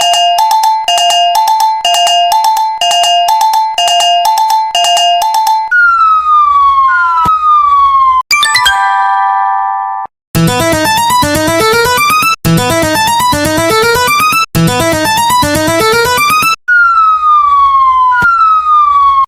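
Japanese railroad crossing warning bell ringing in a steady alternating two-tone pattern, about two strikes a second. It gives way to two falling whistle-like glides over a low hum, then a fast electronic melody over a beat, then two more falling glides.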